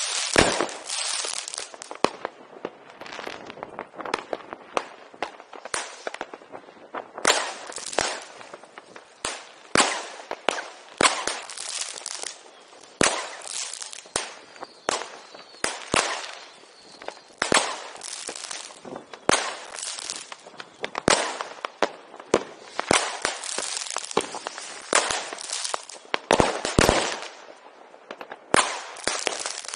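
Fireworks and firecrackers going off: a dense, unbroken string of sharp bangs and crackles, several a second, with louder single bangs standing out among them.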